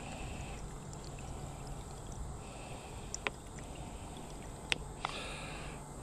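Filtered water trickling from an inline water filter into a plastic bottle, with a few sharp clicks.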